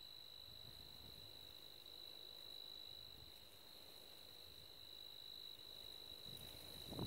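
Crickets trilling steadily at one high pitch, faint over near silence.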